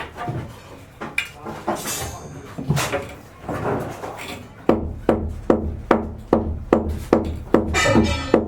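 Irregular knocks and clatter, then, a little past halfway, background music with a steady beat of about two to three strokes a second comes in.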